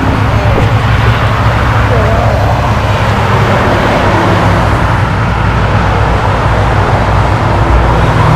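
Nissan Z Nismo's V6 idling with a steady low exhaust hum, with road traffic going by.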